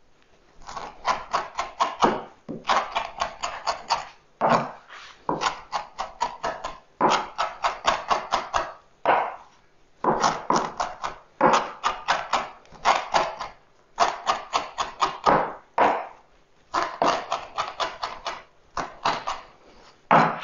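Kitchen knife chopping fresh parsley on a wooden cutting board: quick runs of sharp knocks, about six strokes a second, broken by short pauses as the herbs are gathered.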